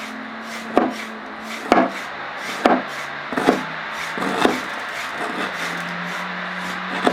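Knife chopping on a wooden cutting board: sharp knocks about once a second, fading after the first few strokes.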